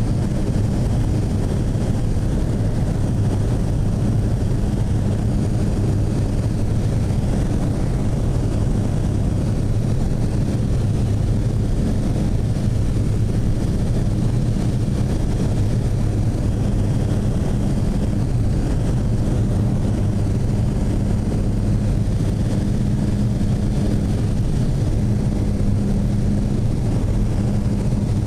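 Light propeller aircraft's engine and propeller droning steadily, heard from inside the cabin, with a low hum that holds one pitch throughout.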